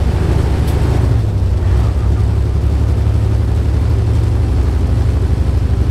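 Semi truck's diesel engine running steadily at highway cruising speed, heard from inside the cab as a loud, even low drone with road noise.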